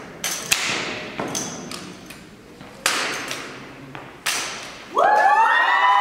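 Sharp smacks and thuds from a tandem armed drill routine: drill rifles tossed, caught and struck against the floor, each hit echoing in a large hall. About five seconds in, the watching crowd breaks into loud cheering.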